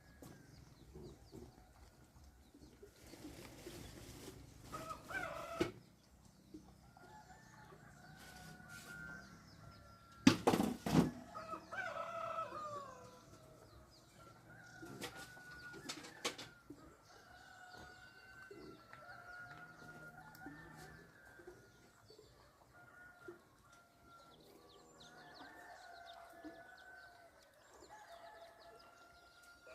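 Chickens clucking and calling on and off, with a short, loud flurry of noise about ten seconds in.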